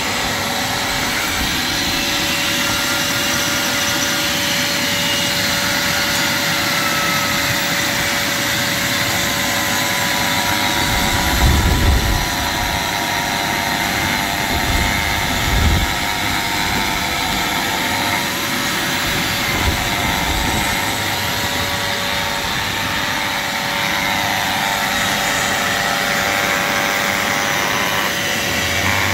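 Angle grinder with a dust shroud raking out the mortar joints in a brick wall: a steady high motor whine over a loud grinding hiss, with two brief louder low bumps around the middle.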